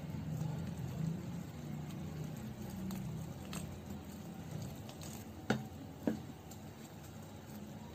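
Metal hand whisk stirring milk into flour and cocoa powder in a glass bowl, making a soft wet squishing as the batter forms. About five and a half and six seconds in, two sharp clicks ring out, the loudest sounds, as the whisk knocks against the glass.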